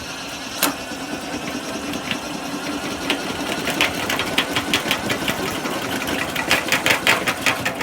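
Power drill spinning a converted hand-crank honey extractor: a steady motor hum with a regular knocking, about five to six knocks a second, that grows louder toward the end.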